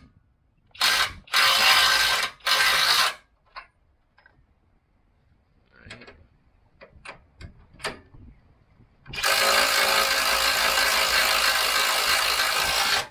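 Cordless power ratchet running bolts into a new front lower control arm, snugging them down: three short runs in the first three seconds, a few light metallic clicks, then one steady run of about four seconds near the end.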